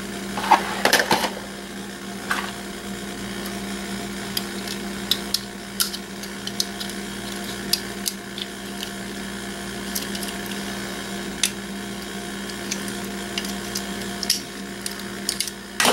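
Small metal clicks and scrapes from a screwdriver prying at the metal casing of an SFP transceiver module, with a denser burst of scraping about a second in. A steady background hum runs underneath.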